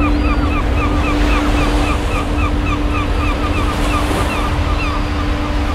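A ship's propeller wake churning and rushing, with wind buffeting the microphone, over a steady hum. A run of short, high chirps repeats about three times a second and stops near the end.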